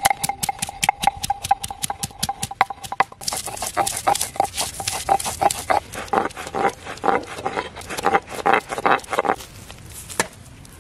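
Stone roller knocking and grinding ginger on a grooved stone slab (shil-nora), a quick run of knocks with several strokes a second, turning into a denser gritty scraping a few seconds in and stopping near the end.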